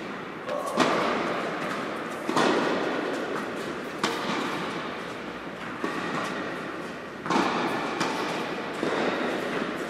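Tennis rally in a large indoor hall: the ball is struck by rackets about six times, roughly a second and a half apart, each hit followed by a long echo.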